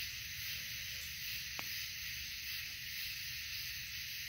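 Steady outdoor background hiss with a low rumble underneath, with one faint click about one and a half seconds in.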